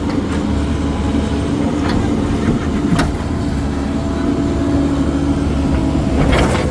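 Heavy diesel engine running steadily with a low rumble, with a sharp knock about three seconds in and another near the end.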